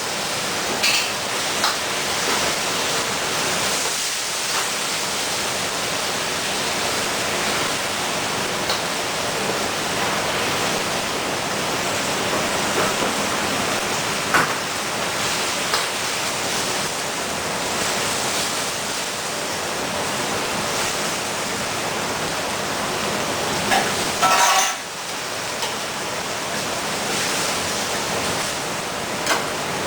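Steady sizzling of food frying in a wok, with a few light clinks of a cooking utensil against the pan and a louder run of clinks about two-thirds of the way through.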